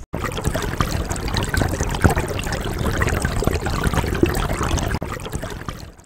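Water of a small river trickling and rippling over stones, a dense steady rush full of small splashes and crackles, fading out near the end.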